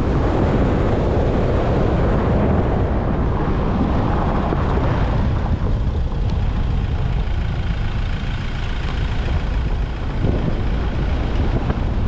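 Wind rushing over a camera mounted outside a moving car, mixed with the car's steady road and engine noise. The rush is heavier for the first few seconds, then eases slightly.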